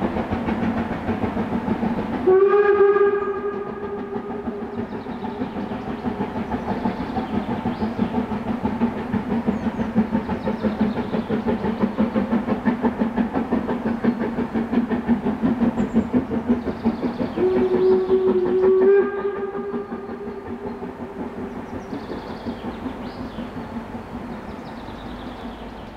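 Harzquerbahn metre-gauge steam locomotive running with a steady rapid chuffing, sounding its whistle twice: a blast about two seconds in and a longer one about two-thirds of the way through. The sound slowly fades near the end as the train draws away.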